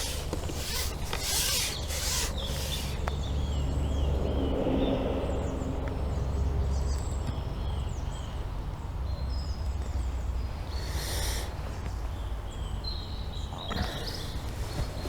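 Small birds chirping repeatedly over a steady low rumble, with a few brief rustling swishes near the start and again near the end.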